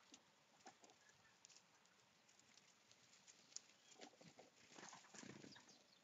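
Near silence: faint outdoor quiet with scattered small ticks and rustles, thickening briefly about four to five seconds in.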